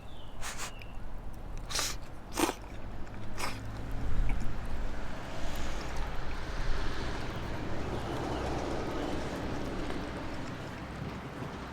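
A few sharp clicks in the first few seconds, then ramen noodles being slurped in long, uneven pulls.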